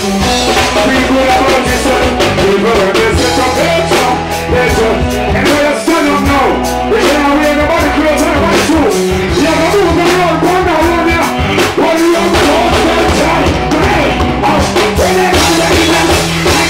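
Live reggae band playing loudly, with drum kit and guitars, while a male vocalist sings into a microphone over it.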